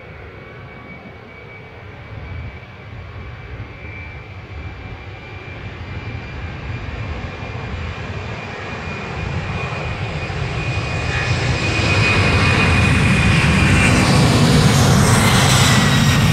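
Boeing 767's twin jet engines at takeoff thrust as the airliner accelerates down the runway: a low rumble with a steady high whine, growing louder for about twelve seconds and then holding loud, the whine dropping in pitch near the end as the plane passes.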